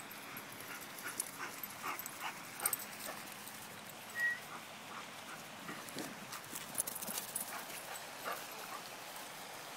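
A boxer and a small white dog chasing each other on grass: scattered soft thumps and patters of running paws, with a brief high squeak about four seconds in.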